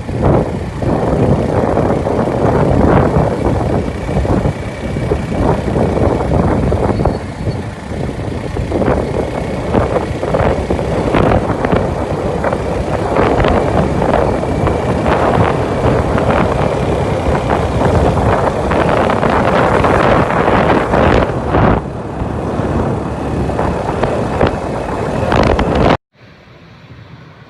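Wind buffeting the microphone outdoors: a loud, gusty rumble and roar. It cuts off abruptly a second or so before the end, giving way to much quieter background sound.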